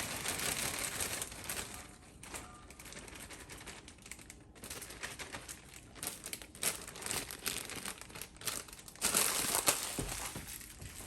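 Plastic packaging crinkling and rustling as shredded lettuce is poured out and handled, with scattered crackles and a louder burst of crinkling near the end.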